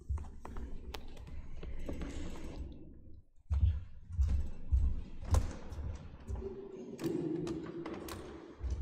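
Footsteps of a person walking across a wooden church floor, heard as a run of heavy low thumps about half a second apart in the middle, with small clicks and taps from handling a book throughout.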